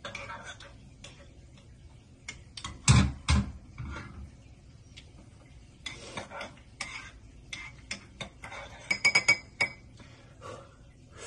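Kitchenware being handled: a metal spoon clicking and scraping against a saucepan and dishes, with scattered clicks throughout. A loud knock comes about three seconds in, and a quick run of ringing metallic clinks near the end.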